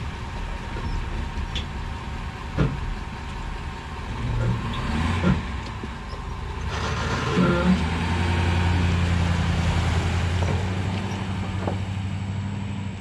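An engine running, a steady low hum that firms up about seven seconds in, with a few sharp knocks along the way.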